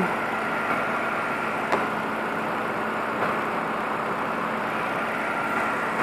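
Car engine idling steadily under the open hood with the AC compressor clutch engaged and spinning, as refrigerant is charged into the low side of the system. A faint steady high tone runs through it, and a single light click comes a little under two seconds in.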